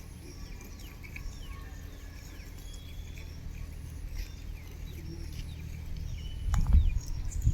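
Outdoor farm ambience: faint, short bird chirps scattered over a steady low rumble, with a louder low rustle or thump about seven seconds in.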